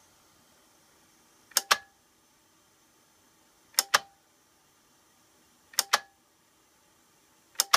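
8-track recording deck's program-select button and track-change mechanism clicking, four times about two seconds apart, each a quick double click as the program light steps to the next track. A faint steady hum of the running deck lies underneath; the change mechanism is working again after being sprayed.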